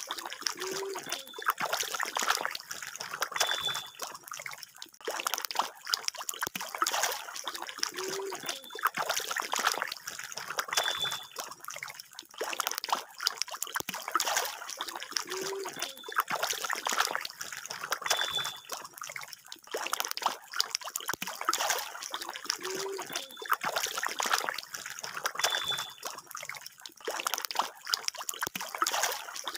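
Pond water splashing and churning as magur catfish (walking catfish) thrash at the surface, a dense run of small, irregular splashes and trickles.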